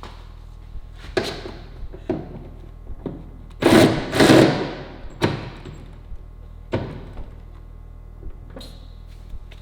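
Scattered knocks and clunks from someone handling parts and tools in a car's interior, with a louder scraping rustle about four seconds in, over a steady low hum.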